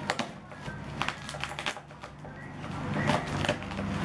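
Plastic bag and bubble wrap crinkling in irregular crackles as the packaging is cut open with a knife.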